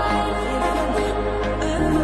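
Music with a sustained bass note under a melody; the bass note steps lower near the end.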